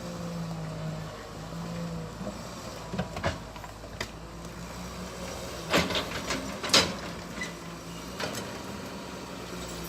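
Excavator's diesel engine running steadily, with a few sharp knocks and clanks, the loudest two close together about six and seven seconds in.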